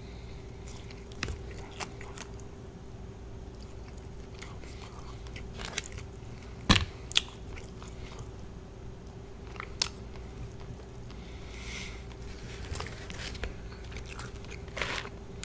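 Close-miked chewing and biting of KFC Extra Crispy fried chicken, with scattered crisp crunches; the loudest come about halfway through.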